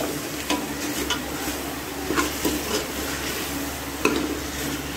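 Metal spoon stirring and scraping spiced chunks of meat in a metal pot over a steady frying sizzle, with short sharp clinks of the spoon against the pot every half second to a second. This is the browning stage of a karahi, with the spices just mixed in.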